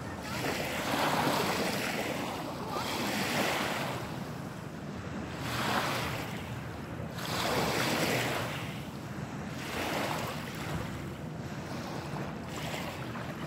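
Small lake waves washing up on a pebble beach, each wash swelling and fading about every two seconds.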